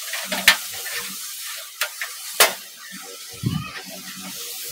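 A thin metal I/O shield being fitted into a PC case's rear opening: three sharp metallic clicks as it is pressed and snapped into place, then a dull thud of handling, over a steady background hiss.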